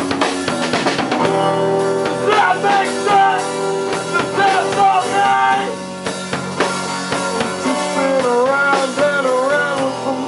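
Live rock band playing: acoustic-electric guitar, bass guitar and drum kit. Dense drum hits open it, then held chords carry a wavering melody line that bends up and down, twice.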